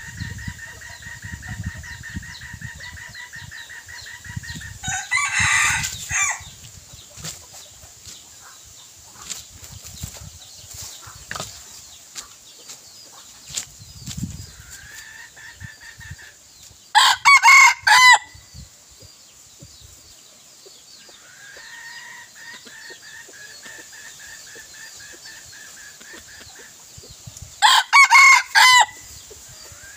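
Red junglefowl decoy roosters crowing: three short crows, about five seconds in, about seventeen seconds in and near the end, the last two the loudest. A steady high whine comes and goes between the crows.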